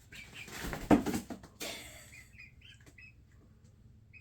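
A chicken flapping its wings in a burst of rustling, with a loud thump about a second in as it lands, followed by a few short, soft chirping calls.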